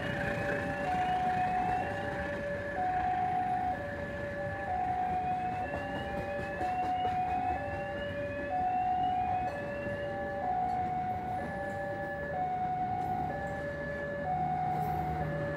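Electronic two-tone warning alarm alternating a low and a high note about once a second, with a faint rising chirp repeating above it, over a low mechanical rumble: typical of a railway level-crossing alarm sounding as a train approaches.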